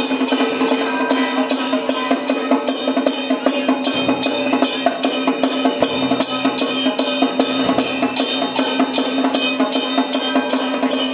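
Temple procession music: drums and percussion beating a steady rhythm of about three strokes a second over a steady held tone.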